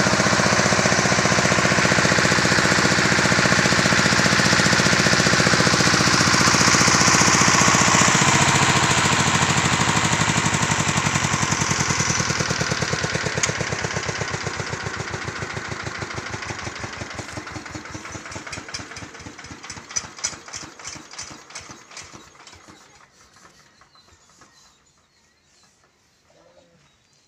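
Piston air compressor supplying a spray gun runs loudly, with a hiss of air over it. About halfway through it winds down, its beats coming slower and slower and fading until it stops near the end.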